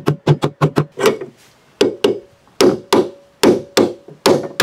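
Hammer blows driving a ball bearing into the end of an iron pipe, struck through a length of pipe held against the bearing as a drift. A quick run of metallic knocks, about five a second for the first second, then slower, uneven strikes.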